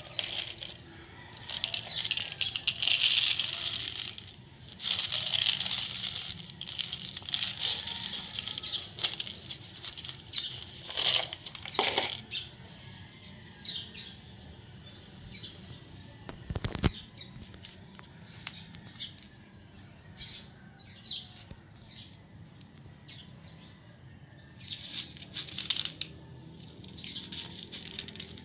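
Rustling handling noises, dense and loud through the first twelve seconds, with one sharp knock about two-thirds of the way through the first half of the quiet stretch; later, short scattered crunching bursts as a cat chews dry kibble.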